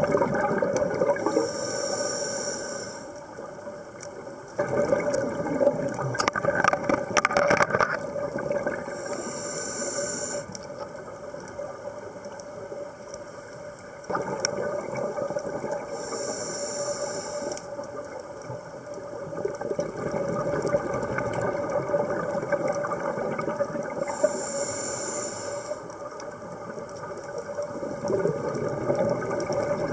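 Underwater sound of a scuba diver breathing through a regulator: a burst of exhaled bubbles about every seven to eight seconds, over a steady low drone. A spell of bubbling crackle comes about six to eight seconds in.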